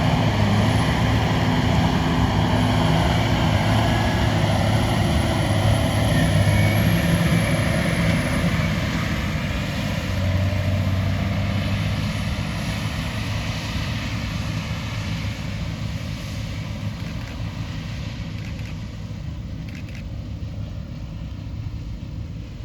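New Holland CR8.90 combine running steadily while harvesting corn, a continuous engine drone that grows gradually fainter over the second half.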